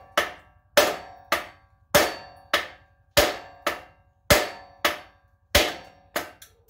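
Hammer blows on metal, about a dozen strikes at a steady pace of almost two a second, each ringing briefly. They are driving at a swing-arm pivot bolt that is seized in its sleeve, which the owner thinks is badly corroded.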